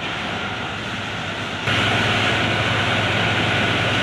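Fire engine pump running while a hose jet sprays water: a steady rumbling hiss with a faint hum, which gets louder about a second and a half in.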